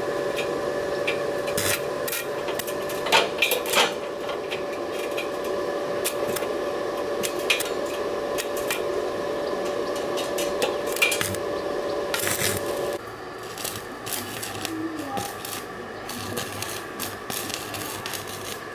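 Stick-welding arc crackling and sizzling as the electrode burns onto steel channel, with frequent sharp pops. About 13 seconds in, a steady tone underneath stops, the sound drops in level, and the crackle goes on in shorter spells.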